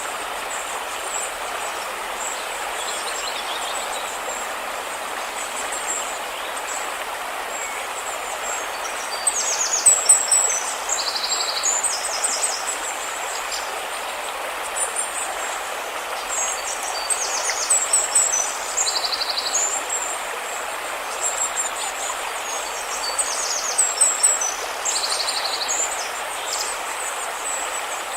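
River water flowing steadily, with small birds calling over it in quick, high-pitched trills that come in clusters, the loudest about ten seconds in and again around eighteen and twenty-four seconds.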